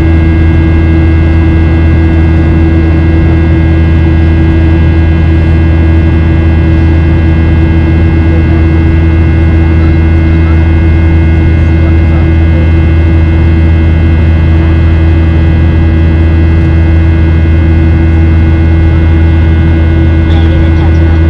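Cabin noise of a Boeing 737-800, its CFM56-7B engines and airflow heard from inside: a steady low drone with a few thin, steady whining tones above it.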